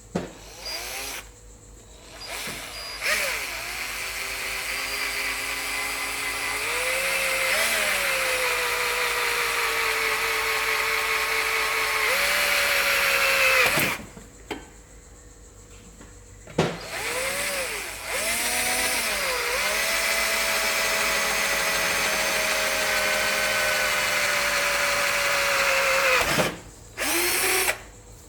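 Old Black & Decker cordless drill boring a small guide hole through a motorcycle fork damper rod. The motor speeds up, runs steadily for about ten seconds with its pitch sagging briefly as the bit bites, and stops. After a short blip it runs again for about eight seconds, with one more short burst near the end.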